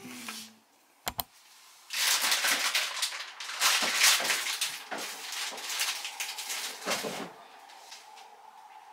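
Things being handled and shifted about in a kitchen cabinet: a few seconds of rustling and clattering with many sharp knocks, after a short double click near the start. It fades to quiet room tone with a faint hum near the end.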